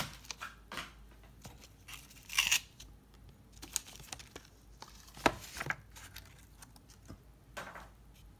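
Trading card blister pack being torn and peeled open by hand. Short crinkles, rips and clicks come in scattered bursts with quiet gaps between, as a pack that won't peel apart cleanly is worked open.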